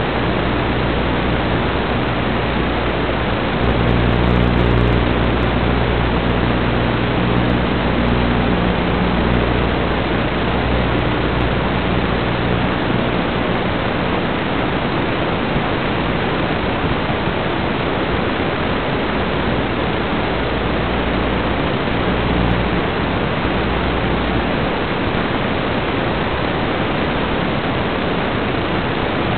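Steady hiss of static from an FPV goggle DVR recording of an analog video receiver's audio channel. For about the first dozen seconds a low, steady hum sits underneath.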